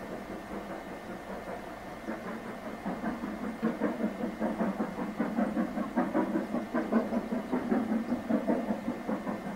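Distant exhaust beats of a steam locomotive working hard up a steep 1 in 49 gradient. The beats come at about four a second and grow louder about three seconds in.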